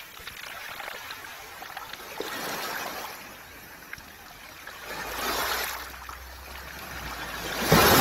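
Small waves washing up a beach of round pebbles in three surges, the largest near the end, with the stones clicking against each other.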